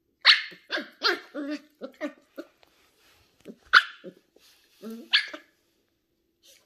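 Ten-week-old Shetland Sheepdog puppy barking in short, high yaps. There is a quick string of barks over the first two seconds, then single barks near the middle and about five seconds in.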